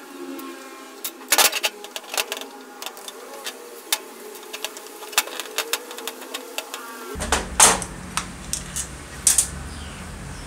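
Screwdriver clicking and scraping on screws and the metal housing of an old Makita circular saw being taken apart, with scattered sharp metal clicks and knocks.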